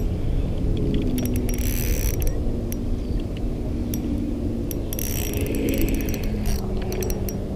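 Spinning reel working against a hooked bass: the drag clicks in two rapid bursts as the fish pulls line out, between stretches of the reel being cranked. Wind rumbles low on the microphone underneath.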